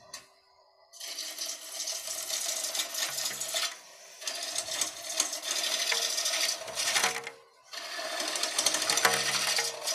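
Bowl gouge cutting a spinning blank of recently harvested cedar on a wood lathe: a loud hiss of shavings coming off in three passes, starting about a second in with short breaks near four and seven and a half seconds, over the lathe's steady hum.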